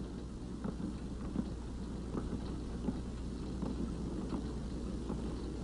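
Crackling hiss and low hum of an old optical film soundtrack, with scattered faint clicks and no other clear sound.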